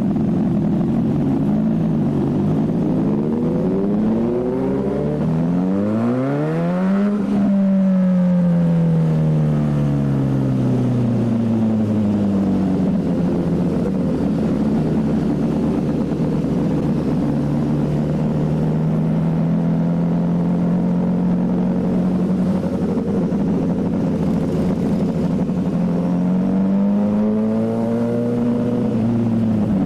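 Motorcycle engine revving up, its pitch climbing over about four seconds to a peak, then falling as it slows and settling into a steady run. Near the end it rises again and drops. A steady rushing noise runs underneath.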